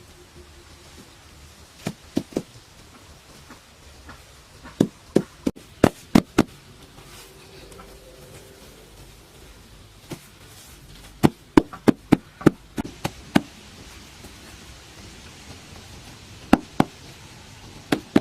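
Sharp knocks in short quick clusters separated by pauses of a few seconds, with a steady faint hiss behind them.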